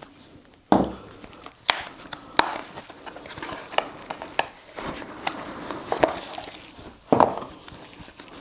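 A small cardboard speaker box being opened by hand and the speaker in its wrapping pulled out: rustling and scraping of cardboard and packaging with many sharp clicks, and a thump about a second in and again near the end.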